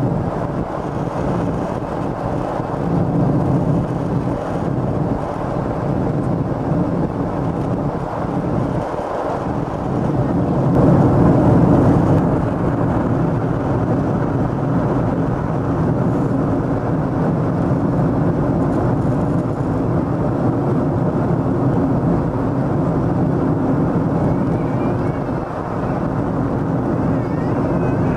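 Steady cabin roar of a Boeing 747SP in flight, its Pratt & Whitney engines and the airflow heard from inside the cabin by the wing, a low droning hum that swells a little about eleven seconds in.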